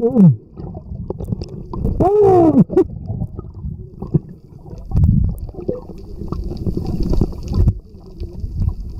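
Muffled underwater sound picked up by a submerged camera: a low, uneven rumble of moving water, with louder surges about five and seven seconds in. Two short muffled sounds glide up and then down in pitch, one at the start and one about two seconds in.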